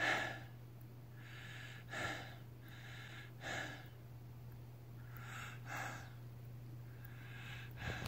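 A man breathing heavily through his mouth: about four audible in-and-out breaths, each pair under a second long and spaced about every two seconds. A steady low hum runs underneath.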